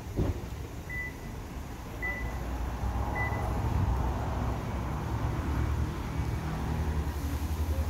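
Short high electronic beeps about a second apart, three clear ones and then fainter ones, over a steady low rumble. A single sharp knock comes right at the start.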